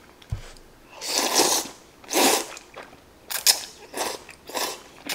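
A person slurping hot udon noodles from a bowl: about five noisy slurps in quick succession, the first the longest, after a soft knock near the start.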